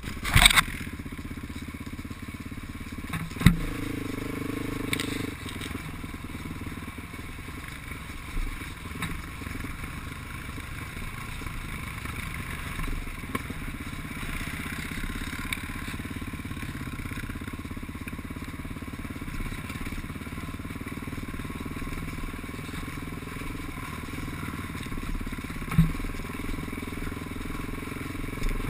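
ATV engine running steadily at trail speed, heard from the machine itself, with a few sharp knocks and clatter as it goes over rough ground; the loudest knocks come about three and a half seconds in and near the end.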